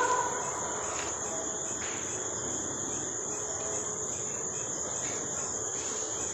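Crickets chirping: a steady, high-pitched trill over a low background hiss.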